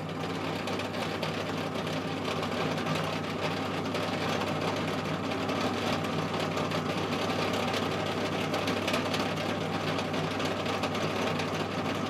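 Pillar drill motor running steadily with a constant hum while a small starter drill bores a shallow pilot hole into steel at the centre-punch marks.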